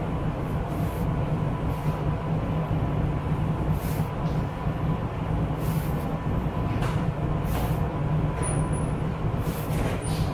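Steady low machine drone of commercial kitchen equipment, with a faint thin whine running through it. Over it come several soft brushy scrapes as hands work mashed potato and flour together on a steel counter.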